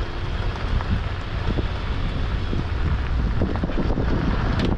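Car driving on a gravel road: a steady low rumble of tyres and engine, with wind buffeting the microphone and scattered small ticks.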